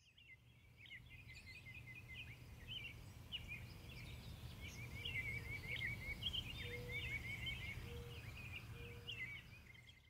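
Small birds chirping and trilling repeatedly over a steady low rumble, fading in at the start.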